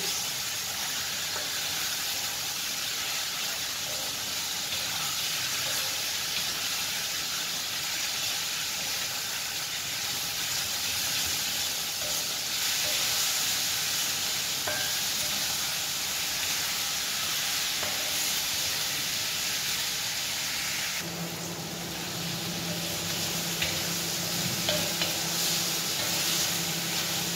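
Cubed chicken breast sizzling in hot oil in a wok as it is stirred and turned with a wooden spatula, with a few sharp taps of the spatula against the wok near the end. A steady low hum comes in about twenty seconds in.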